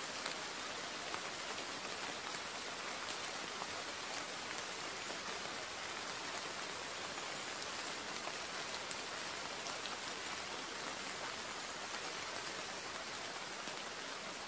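Steady rain: an even hiss with faint, scattered drop taps.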